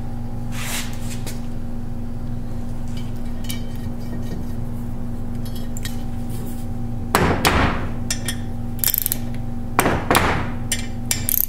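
Ratchet clicks and sharp metallic knocks from a torque wrench as the bolts of a snowplow pump's four-way valve block are tightened to spec. The louder knocks come in clusters from about seven seconds in, over a steady low hum.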